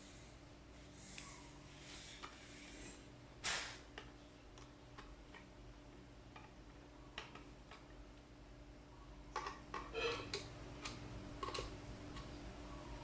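Scattered light clicks and taps of flat-pack drawer unit parts and hardware being handled during assembly, with a sharper knock about three and a half seconds in and a quick run of clicks about ten seconds in.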